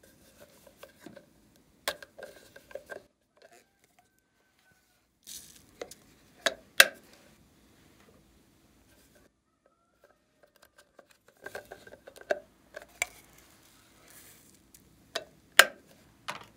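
Hard plastic cases being handled, making clusters of sharp clicks and taps with a few louder snaps, broken by quiet pauses.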